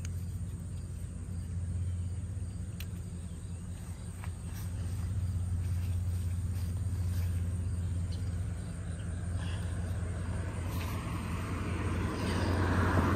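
Steady low outdoor drone of background traffic, with a vehicle passing that grows louder over the last few seconds. A couple of faint snips of hand pruning shears cutting bean stems.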